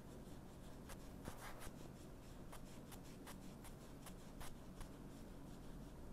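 Hands rubbing and working at the skin of the throat: faint, irregular scratchy ticks, bunched several to a second in places.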